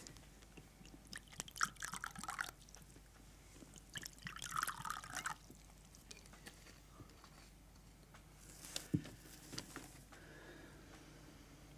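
Liquor poured from a small glass bottle into a shot glass, two short gurgling pours a couple of seconds apart, then a sharp knock near the end.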